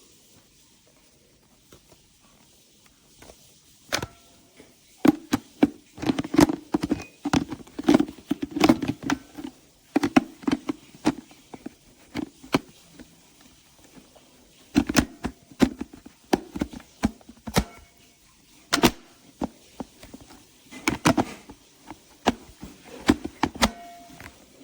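An irregular run of sharp clicks and knocks from hard objects being handled, starting about four seconds in and coming in two busy spells. No motor runs.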